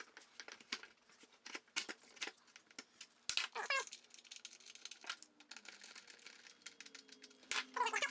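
Clicks, knocks and short squeaks of metal and plastic parts as an electric hand planer is fitted back onto its jointer jig.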